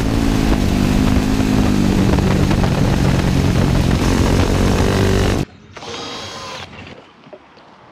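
Racing motorcycle engine at high revs, heard close to its exhaust with wind rush over it. The note drops about half a second in and climbs again around five seconds in as the bike goes through a bend. The engine sound cuts off abruptly about five and a half seconds in, leaving only faint sounds.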